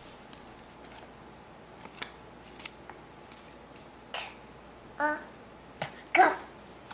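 Paper word cards rustling and tapping against a clear plastic box as a toddler handles them. A young child makes two short vocal sounds, one about five seconds in and a louder one about a second later.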